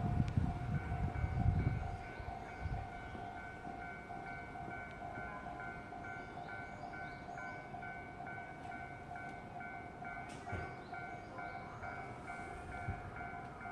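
Japanese level-crossing warning bell ringing in a steady, evenly repeating electronic pulse. The rumble of a passing train dies away in the first two seconds while the bell keeps ringing, a sign the crossing stays closed for another train.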